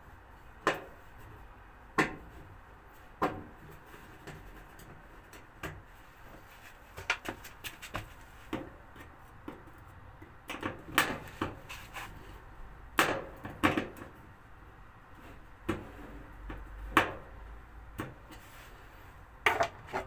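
Irregular sharp knocks and clicks of a hand tool working at a washing machine's plastic bottom cover, prying at a cover that won't come off. The knocks come singly at first, then in quicker clusters in the second half.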